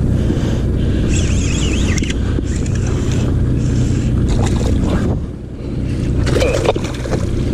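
Wind buffeting the microphone and water around a kayak at sea, over a steady low drone. A few sharp clicks come near the end.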